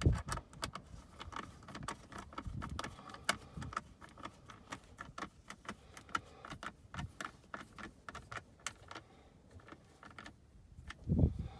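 Small, irregular metallic clicks and rattles as 5.5 mm hex-head screws are fitted and turned in to hold a replacement center console latch.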